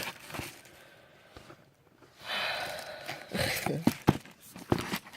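Box contents being handled: about a second of rustling, then light knocks and clicks as items are set down and picked up.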